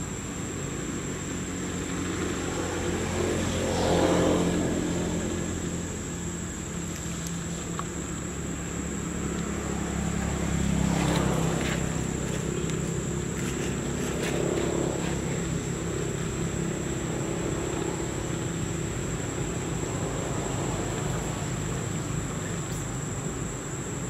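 Steady low engine rumble of passing motor traffic, swelling as vehicles go by about four and eleven seconds in and more weakly near fifteen seconds, with a thin steady high-pitched tone above it.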